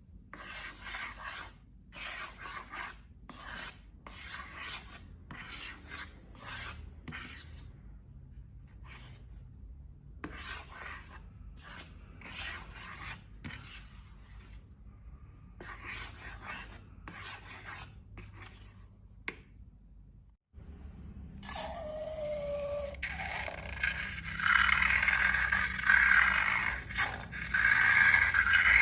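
Slime being scraped and rubbed in short repeated strokes, about one or two a second. After a break about two-thirds of the way in, the scraping comes back louder and more continuous.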